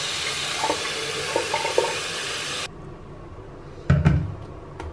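Tap water running into a container to fill it, shut off suddenly a little past halfway, followed by a dull thump.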